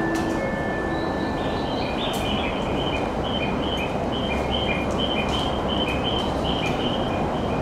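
Quick, high bird-like chirps, several a second and alternating between two pitches, over a steady low background rumble.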